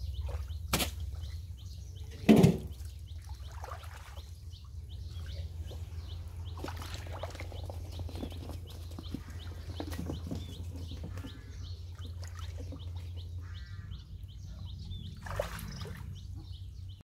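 Hands sloshing and splashing in shallow muddy water while birds chirp repeatedly, with one loud thump about two and a half seconds in and a smaller one near the end.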